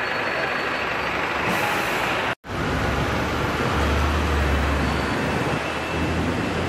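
City street traffic: a hybrid double-decker bus passing close, then, after a sudden brief dropout, steady traffic under a railway bridge with a deep engine rumble swelling for about a second just after the middle.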